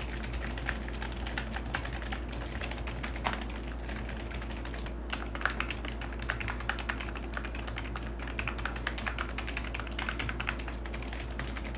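Typing on a Fantech K613L Fighter II membrane keyboard with mechanical-feel keys: a quick run of key clicks that thins out around four seconds in, then picks up densely again, over a steady low hum.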